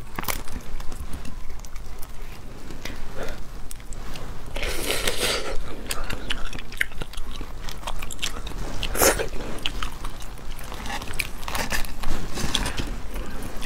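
A large cooked starfish being broken apart by hand close to the microphone: many crisp cracks and crunches of its stiff, spiny skin, with louder crunching tears about five and nine seconds in.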